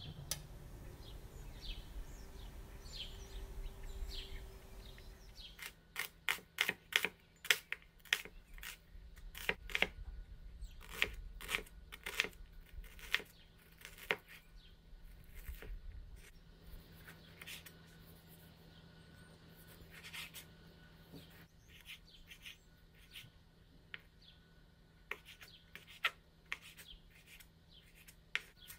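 Kitchen knife chopping red onion and then tomato on a wooden cutting board: sharp taps of the blade on the board, about two a second, starting after a few seconds of low rumble. A faint steady hum lies underneath.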